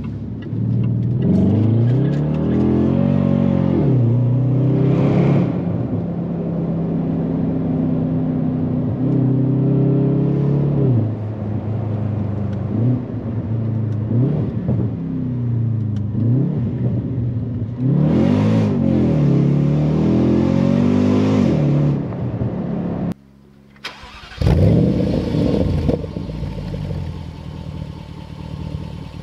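Jaguar XFR's supercharged 5.0-litre V8 revving up and down repeatedly under throttle, its pitch climbing and dropping every few seconds. Near the end the sound cuts out for about a second, then a louder, rougher engine and road noise takes over.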